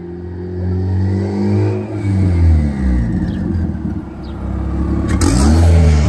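Turbocharged LS/VTEC four-cylinder Honda Civic accelerating up the street. The engine pitch climbs for about two seconds, then drops back. Near the end it swells louder with a rush of noise as the car passes close by.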